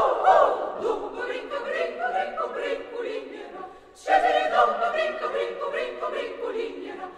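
Chamber choir singing a cappella, a choral setting of a Basque folk song. The singing is loud at first and gradually softens, breaks off briefly about four seconds in, then comes back in loudly.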